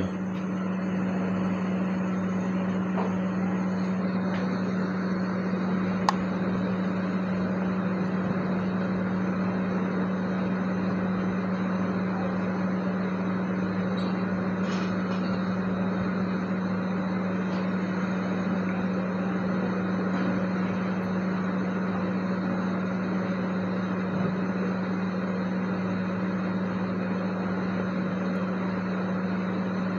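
Hot air rework station blowing steadily, a fan hiss over a low hum, heating a phone's RAM chip to melt its solder so it can be lifted off the board. One sharp click about six seconds in.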